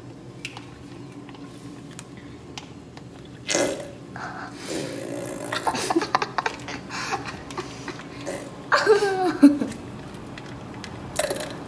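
Cream squeezed out of a carton into a glass blender jar: a few bursts of crinkling and wet squelching as the carton is pressed, and near the end a louder sputtering gurgle that falls in pitch as air forces through the cream.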